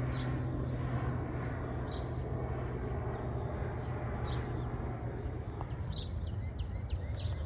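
Airplane flying over: a steady low drone that fades over the first few seconds, over an even hiss of rain. Small birds chirp once around two seconds in and repeatedly toward the end.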